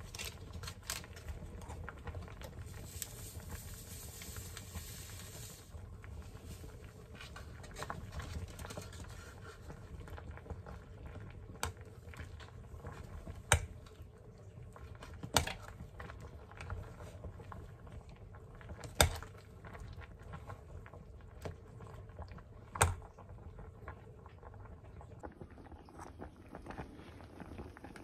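A pot of sour fish soup boiling with a steady bubbling, stirred with a ladle that knocks sharply against the stainless steel pot several times.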